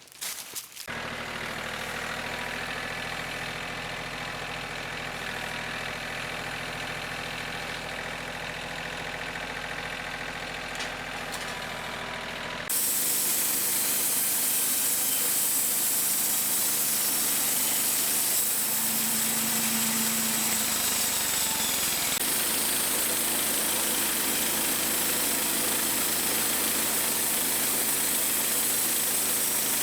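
Engine running steadily. About thirteen seconds in, the sound turns abruptly louder, with a strong steady hiss on top.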